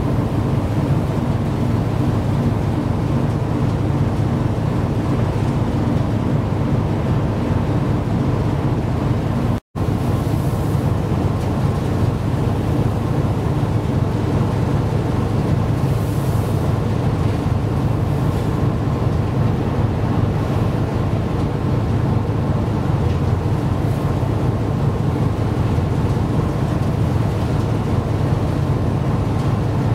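Strong wind buffeting the microphone, a steady low rumble, over rough, choppy sea. The sound cuts out for an instant about ten seconds in.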